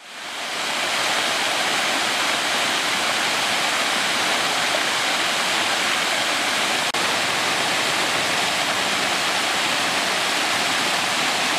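Waterfall: water pouring over a stone ledge into a pool, a steady rush that fades in over the first second, with a brief dropout about seven seconds in.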